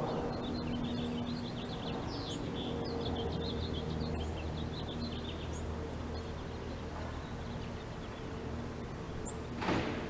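Small birds twittering in a quick run of high chirps over a steady low mechanical hum; the chirping stops about halfway through, and a short whoosh comes near the end.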